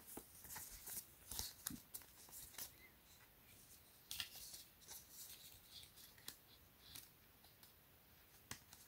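Faint, scattered scrapes and rustles of stiff paper cards being slid apart and handled: the iPhone box's documentation inserts. There is a quiet stretch near the end.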